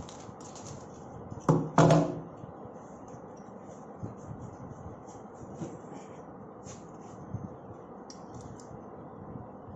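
Telescopic steel drawer slides being handled: two loud knocks close together about a second and a half in, then scattered light metallic clicks and rustles as a slide is pulled out.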